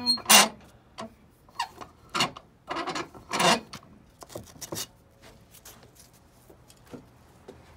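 A bench vise being worked by hand to open it on a squashed marshmallow. Short rasping, rubbing scrapes from the vise handle and screw come in a string over the first few seconds, the loudest near the start and about three and a half seconds in, then only a few faint clicks and handling noises.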